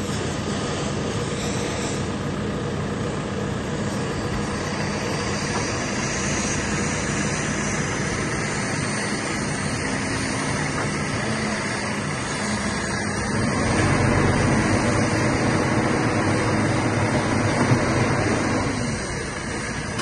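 JCB 3CX Sitemaster Plus backhoe loader's four-cylinder diesel engine running steadily while the hydraulics work the backhoe arm. It gets louder and deeper for about five seconds in the second half, as the engine comes under load, then drops back just before the end.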